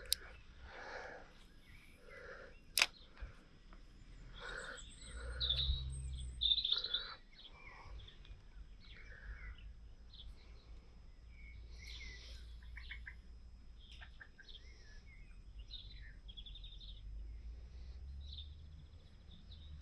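Small birds chirping and calling in short, scattered phrases. A sharp click about three seconds in is the loudest sound, with a low rumble swelling in and out underneath.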